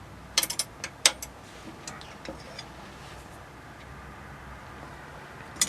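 Light metallic clicks and clinks of steel angle wrenches being handled: a quick cluster in the first second, a few fainter ones after, and a single click near the end.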